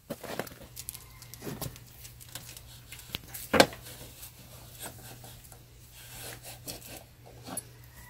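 Scattered clicks, light knocks and rubbing of hand tools working at a dirt bike's rear axle, loosening it so the chain can be tightened; one louder knock about three and a half seconds in.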